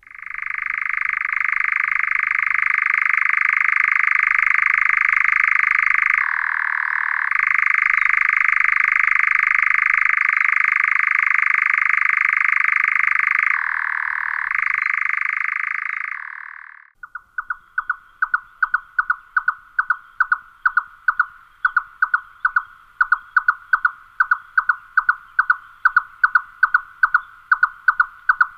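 European nightjar churring: a long, unbroken mechanical trill that drops in pitch twice for about a second. About 17 seconds in it stops, and a red-necked nightjar takes over with its song, a steady run of short knocking notes at about three a second.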